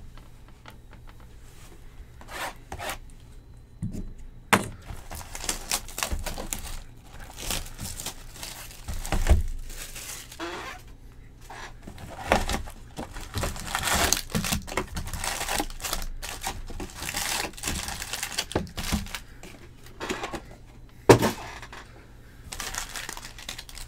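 Plastic wrapping torn off a trading-card hobby box, and its foil-wrapped packs pulled out and stacked on a table: crinkling and tearing with scattered clicks and knocks. It gets busier from about five seconds in, with one sharp knock near the end.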